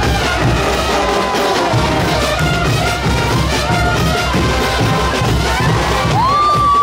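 Marching brass band playing: trumpets, trombones, saxophones and sousaphones over a steady drum beat. Near the end, a loud held high note slides in, holds, and falls away.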